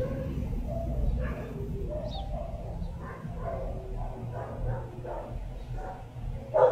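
Faint barking of other dogs, in short irregular bouts over a low steady rumble.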